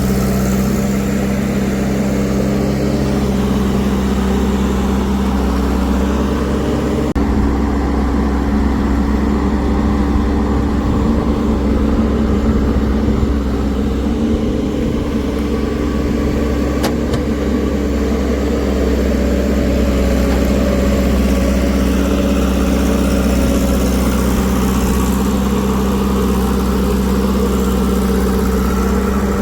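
Diesel engines of a backhoe loader and tractors running steadily. The engine note changes about seven seconds in, and a single sharp click comes a little past the middle.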